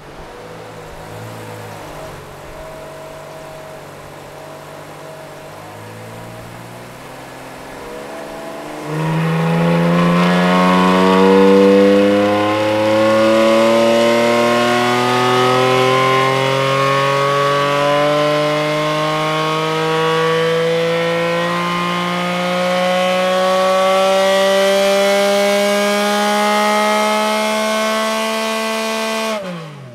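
Porsche 718 GT4 RS naturally aspirated 4.0-litre flat-six, breathing through Dundon tuned-length stainless headers and catted wave pipes into the stock muffler, running at low revs on a chassis dyno. About nine seconds in it goes to full throttle for a dyno pull: the revs climb steadily for about twenty seconds, then fall away quickly as the throttle is closed near the end.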